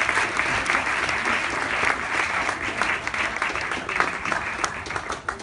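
A roomful of guests applauding, many hands clapping together, starting to thin out near the end.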